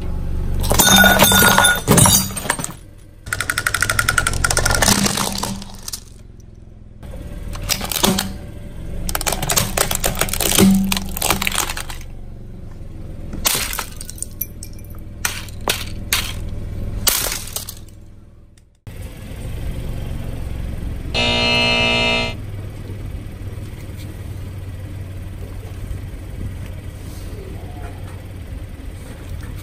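Objects cracking and crunching as a car tyre rolls over and crushes them, in a string of sharp, irregular cracks for the first two-thirds. After a sudden cut, a steady low hum follows, with one brief pitched sound lasting about a second.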